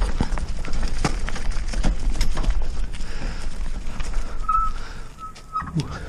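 Mountain bike rattling and knocking as it rides over a bumpy unpaved trail, with a steady low wind rumble on the microphone. The rattling and rumble ease about five seconds in as the bike slows, and a short high squeal sounds near the end.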